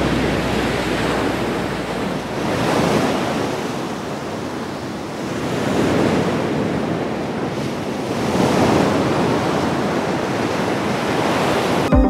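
Ocean surf breaking on a beach, a steady rush of waves that swells and eases every two to three seconds.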